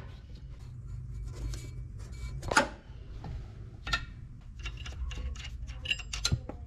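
Small metallic clicks and clinks of hand work on a car's underside, as the parking-brake cable is unhooked from its bracket and a nut is spun on a driveshaft flange bolt. Two sharper clinks come about 2.5 s and 4 s in, and a run of lighter ticks follows near the end, over a steady low hum.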